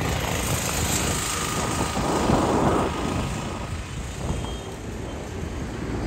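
Wind buffeting the microphone over the rumble of road traffic, swelling about two seconds in.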